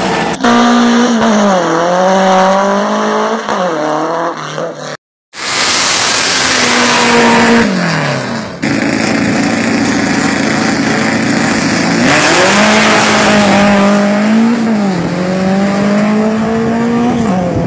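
Air-cooled VW Beetle drag-car engine with a Paxton belt-driven supercharger, revving hard in repeated sweeps up and down, with a brief break about five seconds in. It sounds like a naturally aspirated engine.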